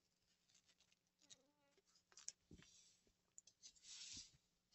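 Near silence: faint room tone with a few soft clicks and a faint hiss near the end.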